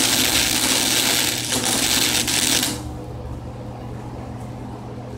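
Flux-core MIG welding arc from a Handy MIG 115-volt welder crackling steadily as a weld is laid on steel chain links. The arc cuts off a little under three seconds in, leaving a steady low hum.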